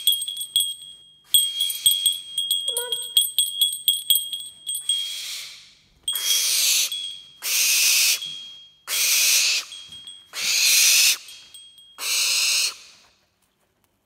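Barn owl giving a series of about six long, harsh hissing screeches, each about a second long, starting about five seconds in. Before them a steady high-pitched ringing with light jingling runs through the first few seconds.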